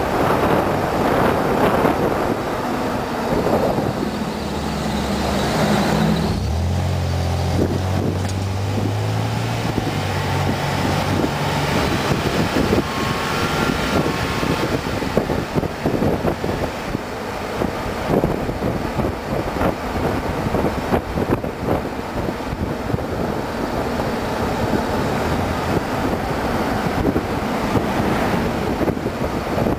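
A car driving along a town street: steady tyre, road and wind noise with the engine running under it, and a deeper engine note that shifts in pitch for several seconds early on.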